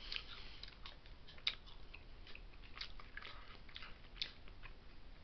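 A person chewing a bite of Slim Jim meat stick: quiet, irregular chewing clicks.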